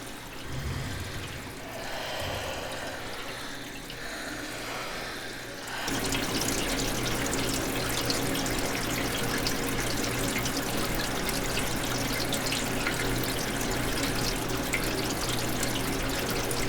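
Water running through a pipe, rushing steadily. It is softer at first and jumps to a full, loud rush about six seconds in.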